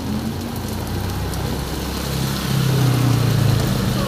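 Motorbike engine approaching along a wet road, its hum getting louder from about halfway through, over the steady hiss of heavy rain.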